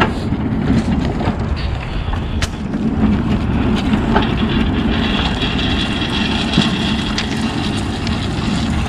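Loaded manual pallet jack rolling across a concrete driveway: a steady rumble from its wheels, with a few sharp clicks along the way.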